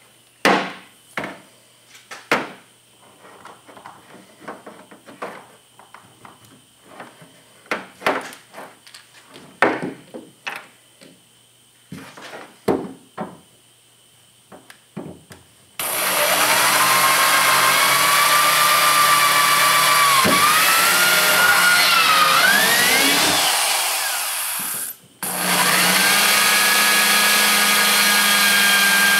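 Scattered knocks and clicks of tools being handled, then a handheld electric drill runs, its motor whine rising and falling under changing load. The drill stops for a moment about three quarters of the way through, then runs again at a steadier pitch.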